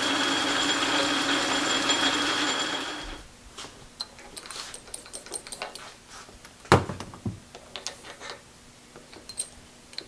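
Metal lathe running while a tailstock drill chuck drills a center hole in the end of an axle blank: a steady mechanical whir that stops about three seconds in. After that come quiet handling clicks of metal parts and one sharp clack about two-thirds of the way through, as the drill chuck is taken out and a dead center goes into the tailstock.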